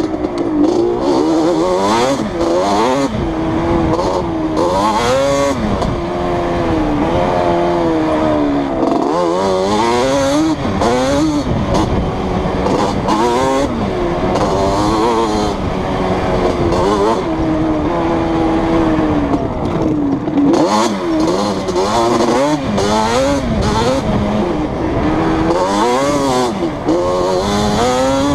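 Yamaha Banshee's twin-cylinder two-stroke engine, fitted with replica Toomey T5 expansion-chamber pipes, revving up and dropping off again and again as the quad is ridden hard on the throttle through the gears.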